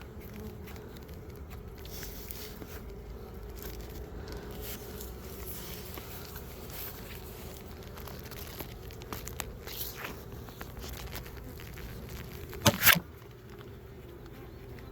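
Honeybees humming steadily from the open hive, under crinkling and tearing as a pollen patty is broken apart and handled. A sharp double knock sounds near the end.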